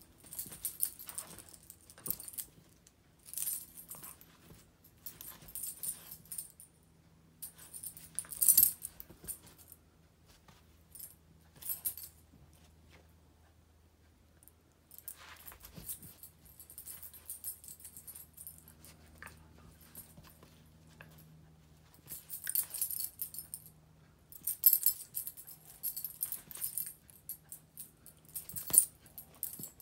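Metal tags on a small dog's collar jingling in irregular bursts as the dog play-wrestles with a cat, with quiet gaps when the play pauses.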